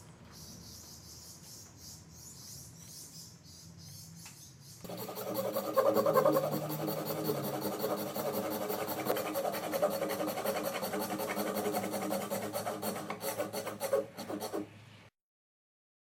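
Faint pencil strokes marking lines on wood, then, about five seconds in, a hand saw cutting a dovetail in a hardwood board, its blade held against a magnetic guide block. The sawing is a fast, steady run of rasping strokes and cuts off suddenly near the end.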